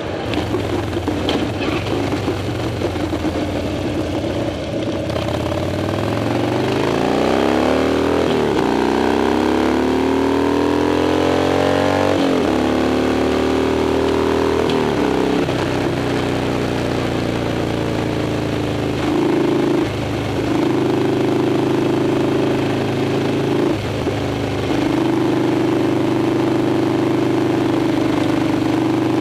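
Harley-Davidson Dyna's V-twin engine under way: running low and steady at first, then accelerating hard with its pitch rising three times, each rise cut by a short drop as it shifts up. It then settles into a steady cruise, with two brief dips in the second half.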